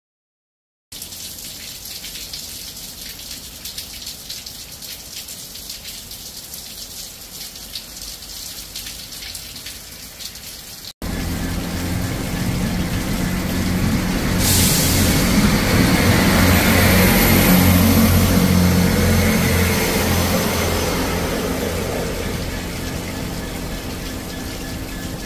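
Rain falling steadily, a fine hiss, then after a cut about eleven seconds in a Class 66 diesel locomotive's two-stroke V12 engine idling with a steady low hum under heavy rain, the hiss swelling and easing off again.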